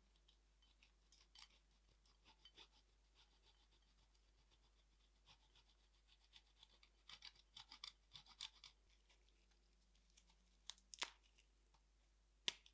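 Parmigiano Reggiano being grated over the gnocchi: a run of faint rasping scratches, sparse at first and quickest in the middle. A few sharp clicks follow near the end.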